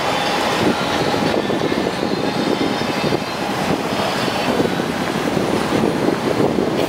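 A train running past with a steady rumble, heard over the street noise.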